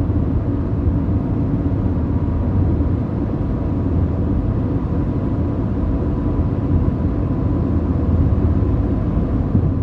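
Honda Accord engine idling steadily, heard from inside the cabin.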